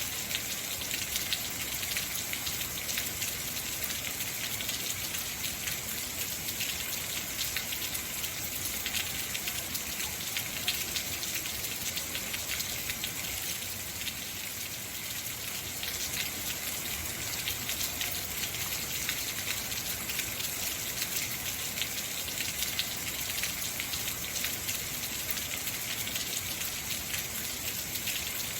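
Heavy rain falling steadily, a dense hiss of many drops pattering on hard surfaces.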